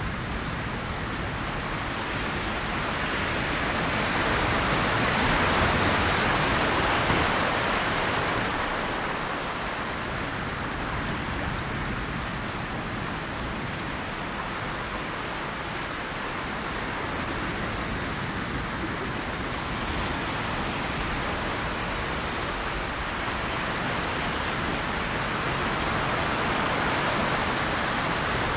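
Sea waves washing in: a continuous rushing surf that swells louder twice, once several seconds in and again near the end.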